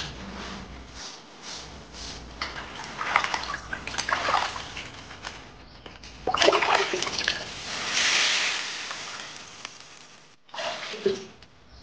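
Water sloshing and splashing in a large iron wok as a slab of pork belly is scrubbed by hand and the water swirled round. About six seconds in comes a loud splash, then a steady hiss as the pork sits in the hot, steaming wok.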